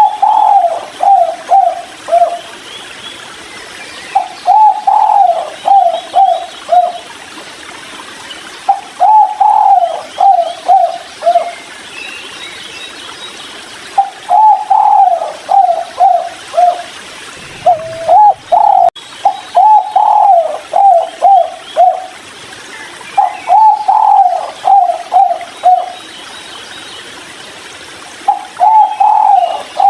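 Spotted dove (tekukur) cooing, a 'kuk 3' caller: a phrase about every four to five seconds, each a longer opening coo followed by several short notes stepping down in pitch. Two phrases come close together in the middle.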